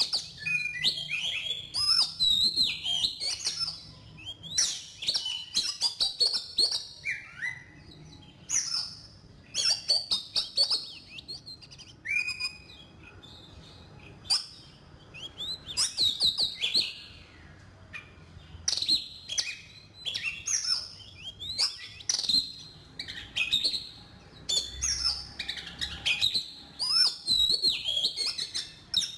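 Oriental magpie-robin singing: a varied string of clear whistled phrases and chirps, with brief pauses between phrases.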